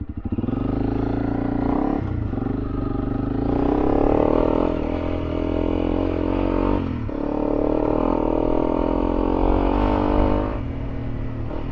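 Honda CRF300L Rally's single-cylinder engine pulling under way, with about three breaks in the engine note, near 2, 7 and 10.5 seconds in, as it changes gear.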